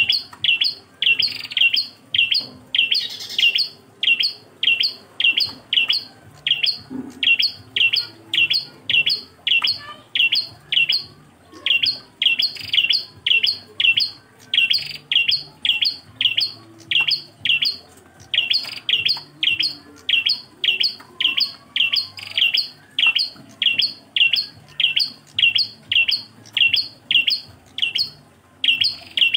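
Ashy tailorbird (prenjak klawu) calling nonstop in a single repeated phrase: a short, high chirping note given about twice a second, with only brief breaks.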